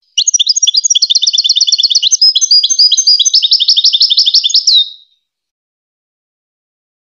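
European goldfinch singing one song phrase about five seconds long: fast runs of repeated high notes and trills.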